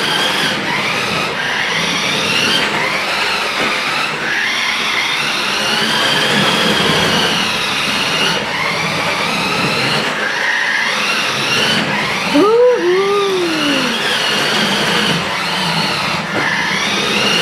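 Battery-powered 1:10 scale RC car's electric motor and drivetrain whining as it drives across a hardwood floor, the pitch rising and falling as it speeds up and slows. About two-thirds of the way through there is a brief squeal that rises and falls.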